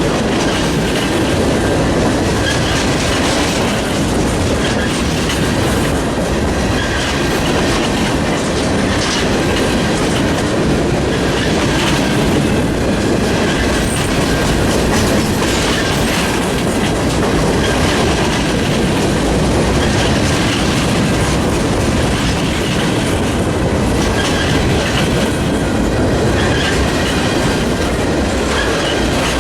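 Freight train cars rolling past, with a steady clickety-clack of wheels over the rail and faint wheel squeal.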